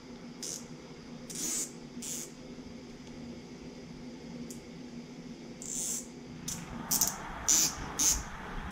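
Plastic zip ties being pulled tight: several short raspy zips, coming closer together near the end, over a steady low hum.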